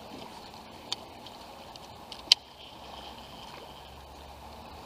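Quiet ambience aboard a small fishing boat on the water, a steady low background broken by two sharp clicks or knocks, the louder a little over two seconds in.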